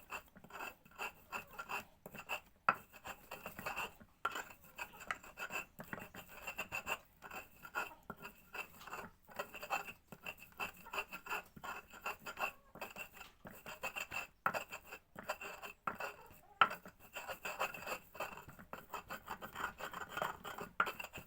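Kaffir lime leaves and garlic being ground by hand with a pestle in a mortar: quick, repeated scraping and grinding strokes as the mixture is worked down to a fine paste.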